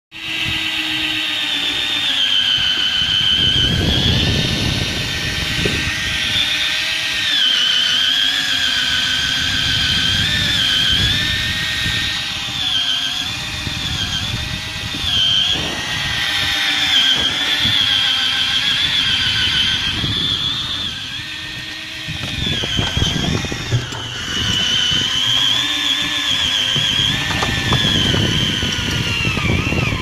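Electric fishing reel's motor whining as it winds in line, its pitch dipping and recovering every second or so as the load on the line changes. Low rushing noise of wind and water runs underneath.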